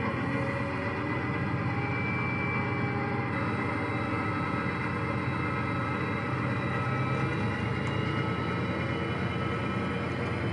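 OO gauge model diesel locomotive running slowly along the track with a passenger coach, giving a steady mechanical running sound with several held tones.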